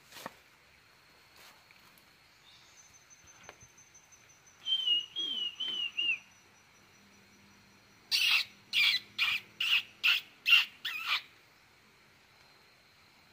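A wild animal calling: four quick arched, whistled notes about five seconds in, then about three seconds later a run of seven loud, harsh calls, roughly two a second. A thin, steady high tone runs underneath.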